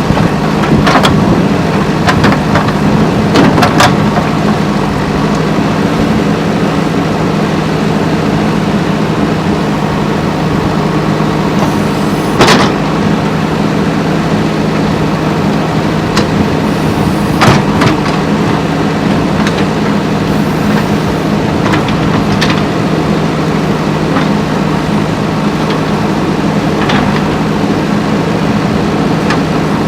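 JCB 3DX backhoe loader's diesel engine running steadily under work, with a handful of short sharp knocks spaced several seconds apart.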